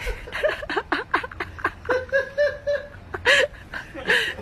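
A person laughing in quick, high-pitched bursts, with a few longer held notes.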